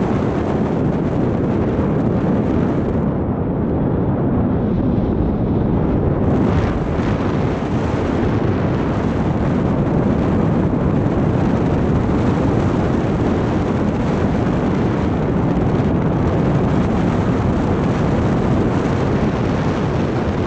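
Airflow rushing over a paraglider pilot's camera microphone in flight: a loud, steady, low wind rumble, a little duller for a few seconds near the start.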